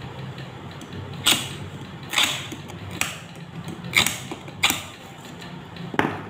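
Hand glass cutter scoring a photochromic glass lens blank: six short, scratchy creaks, about one a second, as it is drawn across the glass.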